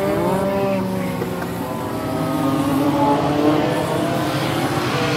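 A pack of Legends race cars running flat out around a paved oval, their small Yamaha four-cylinder motorcycle engines revving at high pitch, several engine notes overlapping and rising and falling as the cars go through the turn. The sound grows louder a few seconds in as the cars come closer.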